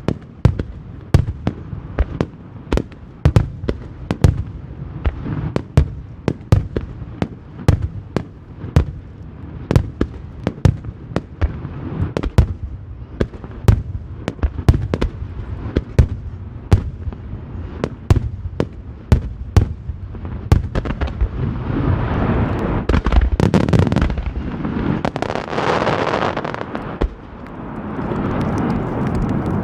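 Aerial fireworks shells bursting in quick succession, a long run of sharp bangs. About two-thirds of the way through the bursts thicken into a dense, continuous rushing barrage that swells to its loudest, then eases and cuts off right at the end.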